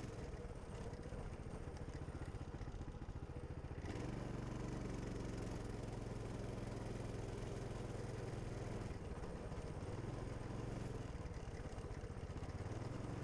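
Coleman Mini Bike 200's small single-cylinder four-stroke engine running as the bike rides along a rough trail; the engine note steps up about four seconds in, dips briefly about nine seconds in, then picks up again.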